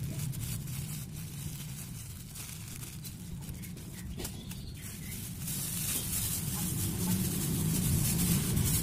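Plastic bags crinkling and rustling as they are handled, louder and crackling in the second half when the black carrier bag is worked, over a steady low background hum.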